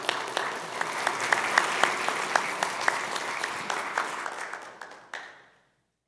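Audience applauding with many overlapping claps, fading out to silence about five seconds in.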